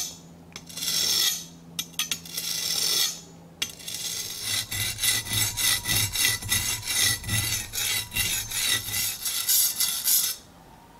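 Steel knife tip being ground against a coarse 120-grit whetstone to reshape a broken tip: a couple of separate scrapes, then rapid back-and-forth strokes about three a second from about four seconds in, stopping shortly before the end.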